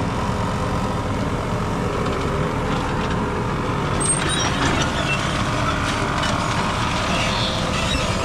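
Tractor engine running steadily under the planter, a constant low rumble, with a few brief high-pitched chirps over it in the second half.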